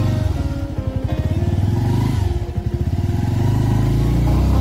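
Motorcycle engine running with a fast, even pulsing beat as the bike pulls away. It dips briefly, then picks up and holds stronger from about three seconds in.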